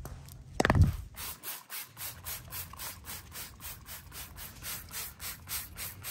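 A trigger spray bottle of 409 cleaner being pumped quickly, about four sprays a second, each a short hiss of liquid onto a part on concrete. A single thump comes just under a second in.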